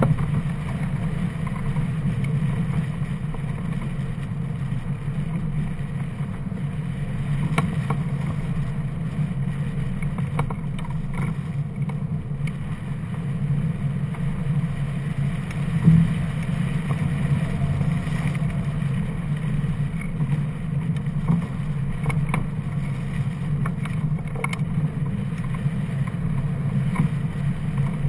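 Airflow rushing over a camera mounted on a hang glider in flight: a steady low wind buffeting on the microphone, with a few faint knocks and one brief bump just past halfway.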